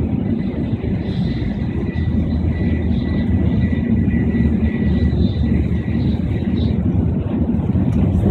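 Tokaido Shinkansen train running at speed, heard from inside the passenger cabin as a steady, loud low rumble, with a faint thin high tone over it through the middle.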